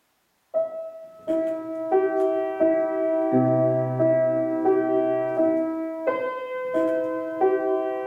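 Grand piano played solo: after a short silence, a melody of evenly paced notes begins about half a second in, and low bass notes join it after a few seconds.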